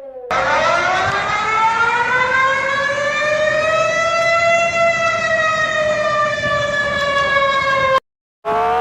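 Outdoor civil-defence warning siren winding up from a low pitch over about four seconds, then holding and slowly sinking. It cuts off abruptly near the end, and after a brief silence another siren starts winding up.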